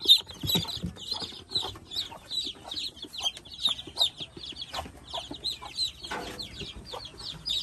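A group of chicks peeping continuously: many short, high, downward-sliding peeps overlapping, several a second, with a few faint knocks and rustles of handling.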